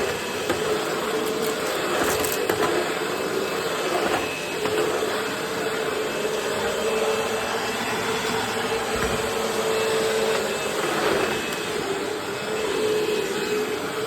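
Eureka Maxima 4700D bagless upright vacuum cleaner running steadily, its 12-amp motor giving a continuous whine.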